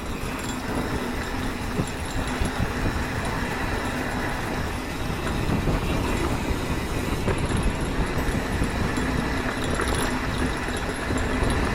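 Mountain bike rolling fast along a dirt trail: steady rumble of tyres over the ground and rattle of the bike, getting a little louder toward the end.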